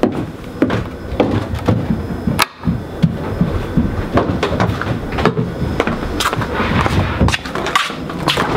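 Footsteps thumping down bare wooden stairs and on across the basement floor: an irregular run of knocks and thuds, mixed with the rustle of the camera being carried.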